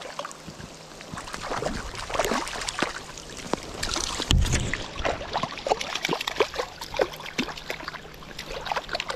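Water splashing and sloshing close by as a hooked trout is played in, with many short irregular splashes and a dull thump about four seconds in.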